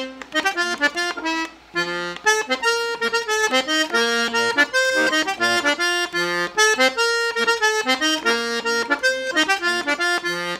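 Diatonic button accordion played solo: a brisk, rhythmic merengue melody of quick repeated notes over bass notes, with a short break about a second and a half in.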